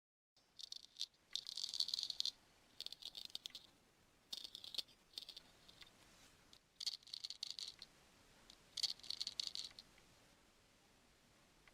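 Straight razor scraping over skin and fine hair in quick, crisp strokes, bunched into about six short bursts with pauses between. This is a shaving sound effect dubbed over the ear-hair shave.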